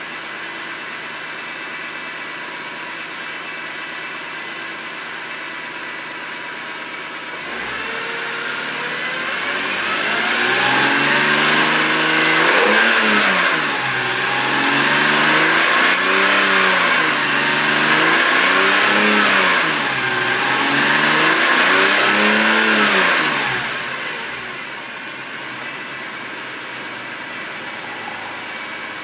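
BMW M3 engine with a freshly rebuilt Vanos idling steadily, then revved up and down about four times before settling back to idle near the end.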